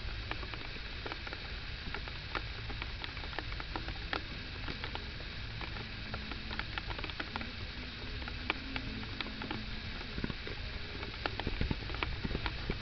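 Raindrops pattering: scattered, irregular sharp ticks of drops landing close by, over a low steady rumble.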